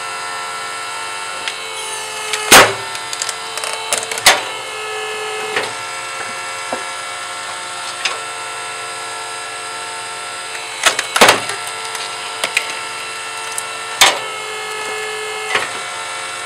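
6-ton electric log splitter running with a steady hum while its wedge is driven through a log. The splitting wood gives sharp loud cracks and knocks, the loudest about two and a half seconds in, with more around eleven and fourteen seconds.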